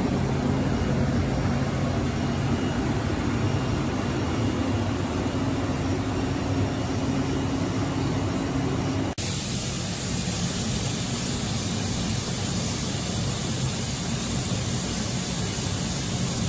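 Steady running noise of a WFL M35G Millturn CNC turning center and its coolant filtration pumps, a low hum with a steady drone over it. About nine seconds in the sound cuts abruptly to a steadier, hissier machine noise as the machine runs its warm-up program.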